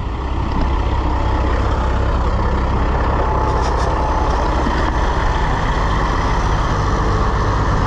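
Grain vac running steadily and loudly: a strong low engine hum under a broad rushing blower noise.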